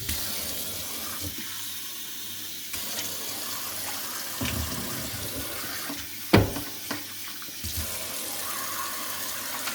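Tap water running into an electric kettle to fill it, a steady rush, with a few low thuds and one sharp knock about six seconds in.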